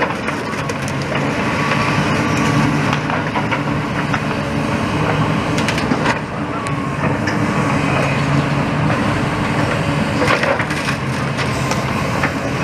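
Demolition machinery running steadily while rubble cracks and crunches, with repeated sharp snaps as debris is broken up and moved.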